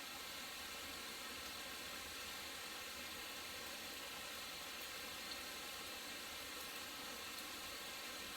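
A steady, faint hissing noise with a couple of faint ticks.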